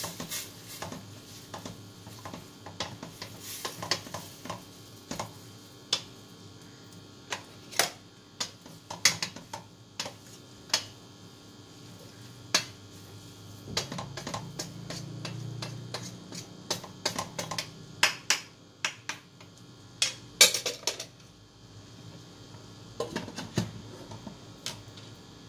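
A cooking utensil knocks, clinks and scrapes irregularly against a pan as rice noodles (bihon) are stirred and mixed while they cook in added hot water.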